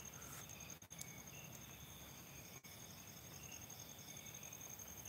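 Night insects, crickets, trilling faintly: one steady, high, fast-pulsing note over quiet background.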